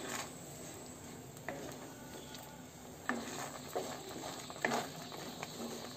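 Wooden spatula stirring semolina halwa in a metal kadhai, giving a few scrapes and light knocks against the pan over a faint steady sizzle as the semolina soaks up milk and water on low heat.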